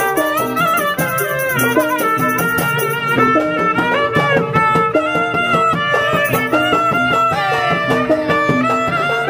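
A Betawi tehyan, a two-string bowed fiddle with a coconut-shell body, plays a wavering, sliding melody in Betawi ondel-ondel street music. Under it run a repeating lower note pattern and jingling percussion.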